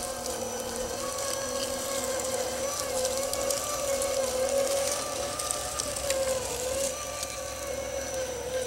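RC4WD Trail Finder 2 scale crawler's electric motor and gearbox whining steadily as it crawls, the pitch wavering slightly as the load changes.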